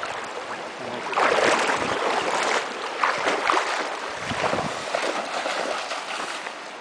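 Water splashing and sloshing as a dog and a person wade through a shallow river. Irregular bursts of splashing start about a second in and die down near the end, over the steady rush of the stream.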